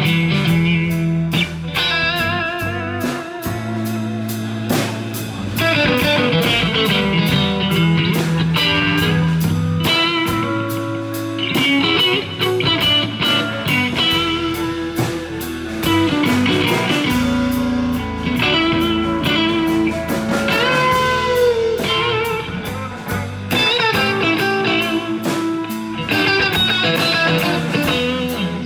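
Live electric blues: an electric guitar plays bent, wavering lead lines over a steady drum beat.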